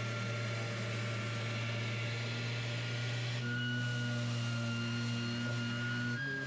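Background music: soft held chords that change about three and a half seconds in and again near the end.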